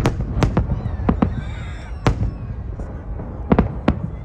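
Fireworks salute: about nine sharp, irregular bangs of shells bursting overhead, several in quick succession near the start and another cluster about three and a half seconds in, over a steady low rumble.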